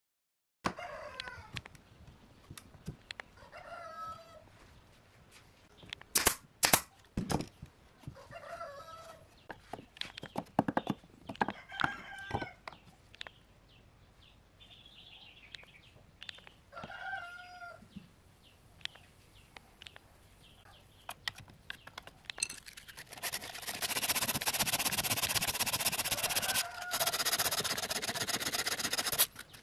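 Chickens calling with a rooster crowing, short calls every few seconds over the first half, with a few sharp knocks about six to seven seconds in. From about 22 seconds in, a steady grinding hiss of a small power sanding tool working a pine joint takes over as the loudest sound.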